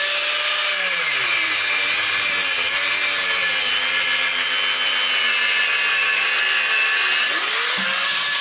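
Mains-powered, high-torque angle grinder with a 1.2 mm cutting disc running steadily as it cuts through a Litelok motorcycle lock. The motor's pitch sags under load about a second in as the disc bites, and rises again near the end as the disc comes off the cut.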